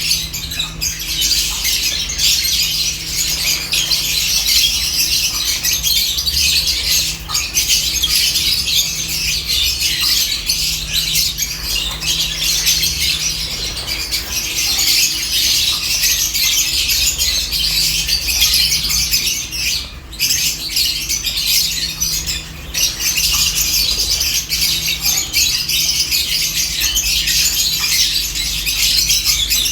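A flock of lovebirds chirping and squawking all at once, a dense high chatter with no pauses. A faint low hum sits underneath.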